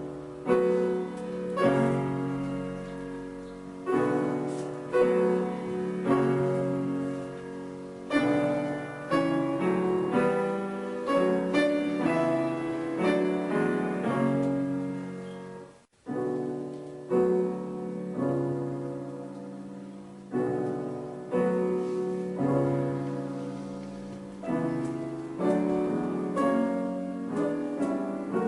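Solo piano music: slow chords struck one after another, each fading before the next, with a brief break about sixteen seconds in.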